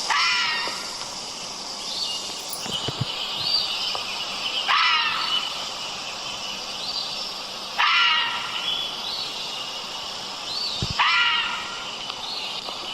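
Fisher (fisher cat) screaming: four short, harsh, pitched cries about three seconds apart, over a steady high-pitched background hiss.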